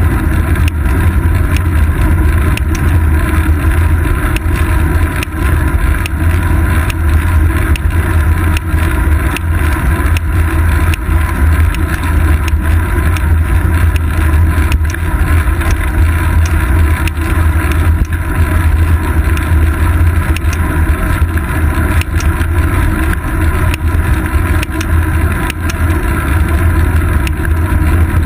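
Steady, loud low rumble of a road bicycle rolling over asphalt, with wind on the microphone, picked up through a camera clamped to the bike's seat post. Frequent small ticks and clicks run through it.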